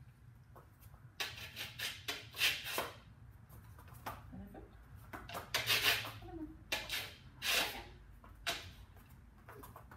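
A border collie's front claws raking across a nail-filing scratch board: several short, rasping scrapes in bouts, the strongest around two and a half and six seconds in.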